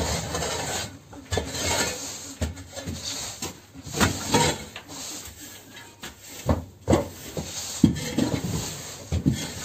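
Long-handled shovel scraping across a concrete floor in repeated, irregular strokes while litter is cleared from a barn aisle.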